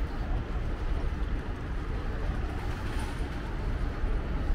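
Steady outdoor background noise: a strong, unsteady low rumble with an even hiss above it and no distinct events.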